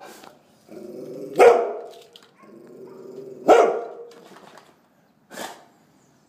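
Golden retriever barking: two loud barks about two seconds apart, each led in by a held vocal note of about a second, then a shorter, softer bark near the end.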